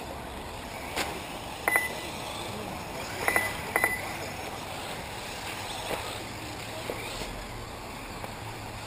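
Electric 1/8-scale RC buggies racing on a dirt track: a steady running noise with several sharp, ringing clinks, some in quick pairs, in the first four seconds, and a couple of fainter knocks later.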